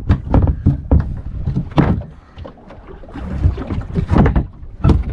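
Irregular knocks and thumps of fishing gear and hull in a small fiberglass fishing boat, over a low rumble, as longline tackle and floats are handled close to the microphone.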